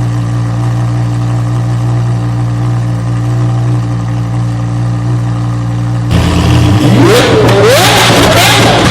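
Lamborghini engine sound effect: the engine idles steadily with a low, even hum, then about six seconds in it starts revving hard several times, its pitch sweeping up and falling back with each blip.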